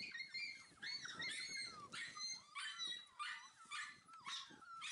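Five-week-old puppies yipping and whining in quick, short, high-pitched cries, about two a second, while play-wrestling.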